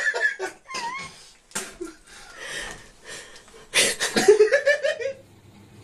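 People laughing hard in repeated bursts, loudest at the start and again about four seconds in, cutting off suddenly near the end.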